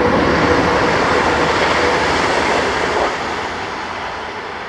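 Train passing through the station at speed: a loud rushing rumble of wheels and air that holds steady, then dies away from about three seconds in as it recedes.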